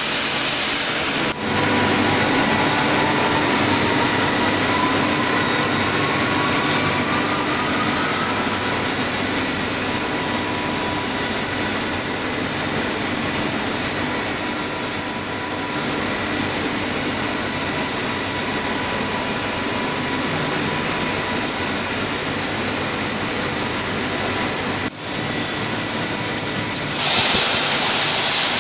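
PCB recycling machinery running with a steady, loud mechanical noise and hum. Near the start a motor's whine rises slowly over several seconds, and near the end a louder hiss comes in.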